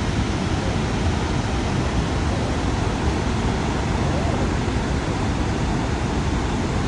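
Steady, even rush of the Horseshoe Falls' cascading water.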